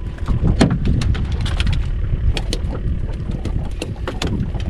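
Wind buffeting the microphone on an open boat, a steady low rumble, with irregular sharp clicks and knocks about two or three times a second while a fish is reeled in and lifted aboard.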